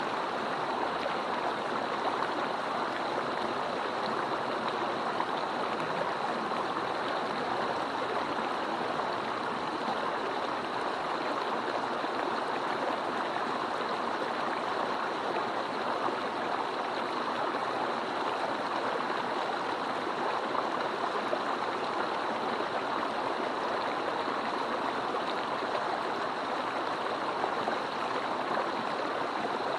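A mountain stream running steadily, a constant even rush of water with no breaks.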